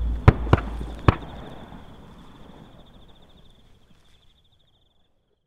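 Duck hunters' shotgun volley: three shots in just over a second, the last one loudest, then the sound fades away over the next few seconds. A faint high steady tone runs on beneath it until near the end.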